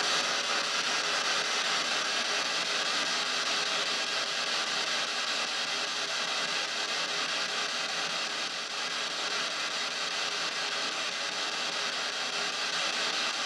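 Steady hiss of radio static from a P-SB7 spirit box sweeping through radio stations, played through small stereo speakers.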